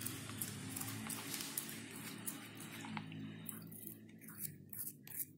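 Toothbrush scrubbing the bristles of a paint brush in a bowl of dirty water: wet squishing and light splashing in quick, irregular strokes, which come more spaced out near the end.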